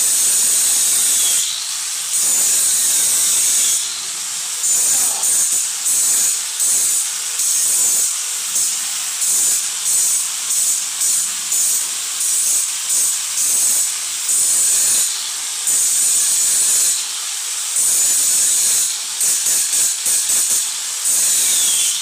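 Corded handheld power tool running with a high whine and a hiss. It runs in long stretches at the start and end, and in the middle it is switched on and off in quick short bursts.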